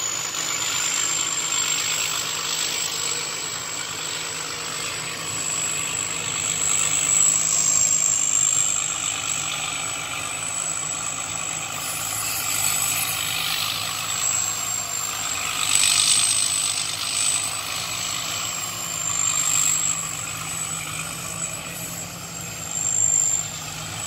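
Engine of a homemade rice harvester running steadily, with a constant thin high-pitched whine over it.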